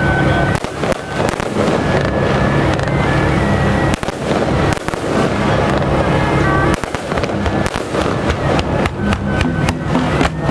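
Aerial fireworks launching and bursting in many sharp crackling reports, which come thickest in the last few seconds.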